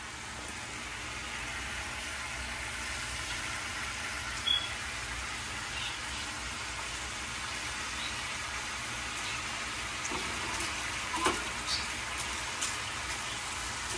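Syrup sizzling in a hot skillet as it is ladled over broken fried buñuelos, a steady hiss. A few clicks and scrapes of a metal spoon come through, once about halfway and several near the end as the buñuelos are turned.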